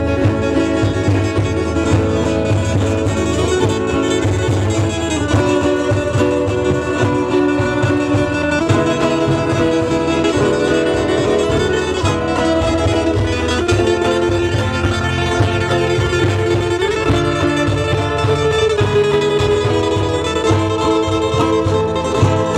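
Instrumental music played on guitar with violin or bowed strings: plucked chords under long held notes that move to a new pitch every second or two.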